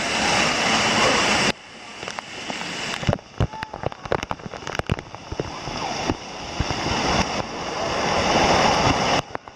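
Water-play fountain jets spraying and splashing onto a wet stone floor: a steady rushing hiss of spray with scattered drips and splatters. The rush drops sharply about a second and a half in, then builds again.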